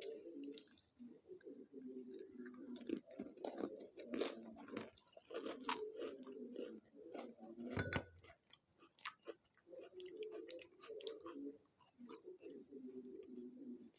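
Close-up eating of pani puri: crisp puri shells crunching and being chewed, with many sharp crunches and a short pause a little past the middle.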